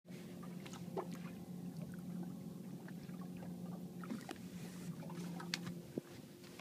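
Steady low hum of the whale-watching boat's engine heard through an underwater camera housing, with scattered small clicks and pops of water and bubbles against the housing. The hum drops away near the end as the camera comes out of the water.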